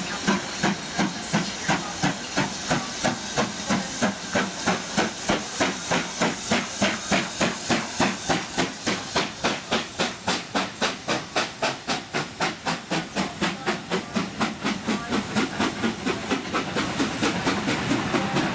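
BR Standard Class 7 'Britannia' Pacific steam locomotive 70013 pulling away with its two-cylinder exhaust beating in an even chuff over a steady hiss of steam. The beats quicken from about two to about four a second as it accelerates past, then fade near the end as the coaches roll by.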